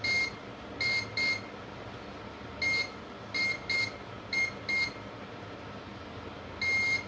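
Multimeter continuity buzzer giving short high beeps, about nine in a row with the last one longer, as the probe touches capacitor after capacitor near the power IC. The beep marks a near-zero-ohm short to ground on the line being tested.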